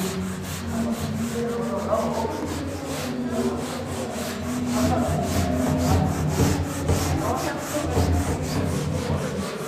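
A handheld whiteboard eraser scrubbing back and forth across a whiteboard, wiping off marker writing in a quick run of rubbing strokes, several a second.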